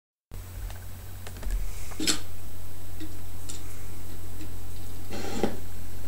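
Scattered light clicks and knocks over a steady low electrical hum, with a sharper click about two seconds in and a short cluster of knocks near the end.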